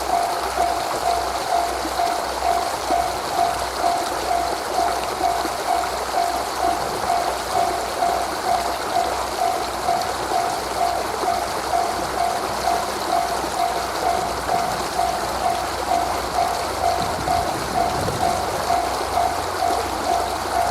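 Japanese level-crossing warning bell ringing, an even 'kan-kan' tone repeating about twice a second, over a steady rushing background.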